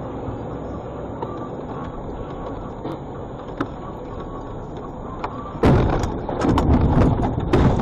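Steady road and cab noise of a vehicle driving on a snowy highway, then about five and a half seconds in a sudden loud crash followed by a string of knocks and bangs as the vehicle runs off the road into the roadside guardrail.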